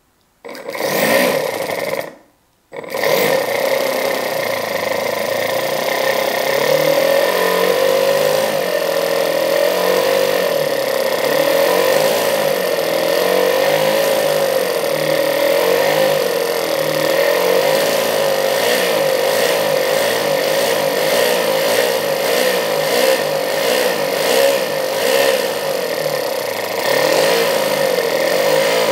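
Toyan two-cylinder four-stroke methanol glow engine starting: it sounds briefly, cuts out about two seconds in, then catches again and keeps running with its speed wavering slightly up and down. Its carburettor is not yet fully adjusted, and the owner reads the unburned oil at the exhaust as a sign that a little too much fuel is going in.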